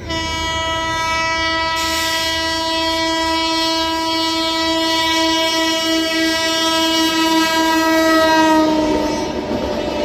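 An Indian express train's horn held in one long, loud blast as the train runs through the station at speed, its pitch sliding down near the end as it goes by. Wheels clatter on the rails under the horn.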